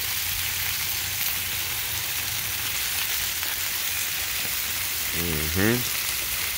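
Chicken, sausages and ribs sizzling steadily on a hot foil-lined gas grill, a constant hiss with a low hum beneath. About five seconds in, a man gives a short hum whose pitch rises.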